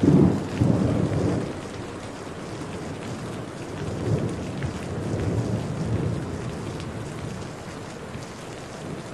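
Steady rain with rolling thunder: a loud thunderclap rumbles right at the start, and fainter rumbles follow around four to six seconds in.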